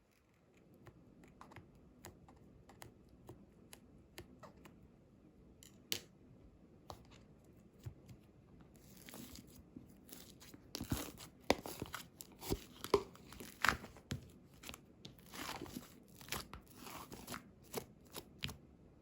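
Hands handling packaging materials: scattered light clicks and taps at first, then denser crinkling and tearing of plastic or paper from about halfway through.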